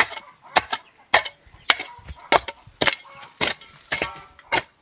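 A hand hoe chopping into soil in a steady rhythm of sharp strikes, about nine in a row at a little under two a second, breaking up the ground to raise a planting bed.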